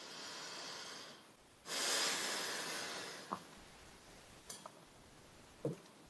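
A person breathing audibly: a breath drawn in, then a longer, louder breath let out that fades away. A few small mouth clicks follow.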